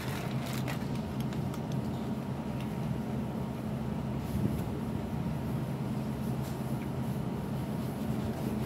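Steady low hum of street traffic, with a few faint clicks.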